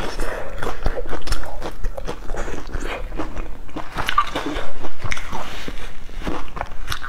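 Close-miked chewing of a crispy, crumb-coated fried patty: a run of irregular crunches and chewing sounds.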